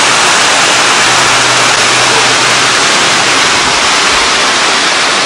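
Waterfall rushing: a loud, steady hiss of falling water.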